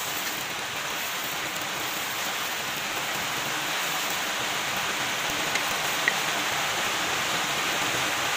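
Heavy rain falling outside, a steady hiss like a storm downpour.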